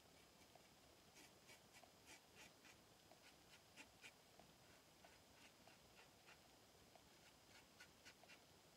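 Faint, short scraping strokes of a Shlyuz Bublos double-edge safety razor cutting stubble, several a second in runs with brief pauses, shaving upward against the grain. The razor has a shim fitted under its head to make it more aggressive.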